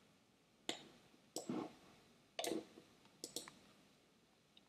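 Faint clicks of a computer mouse and keyboard being worked at a desk: about half a dozen short, scattered clicks, some in quick pairs.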